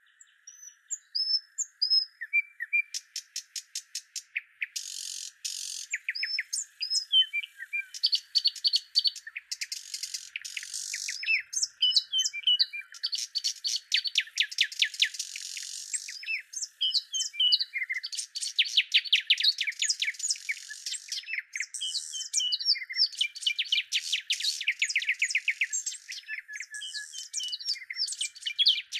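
Several songbirds chirping and trilling in a dense, continuous chorus of quick, high-pitched notes and rapid repeated trills, over a faint steady hiss, with no low sound at all.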